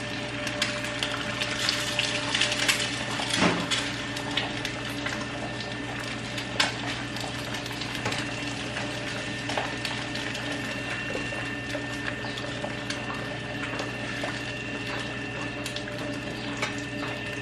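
Egg frying in a little oil in a pan, with scattered pops and crackles over a steady low hum.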